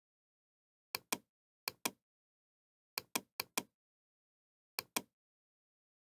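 Computer mouse clicking: five close pairs of sharp clicks spread over the few seconds, with dead silence between them.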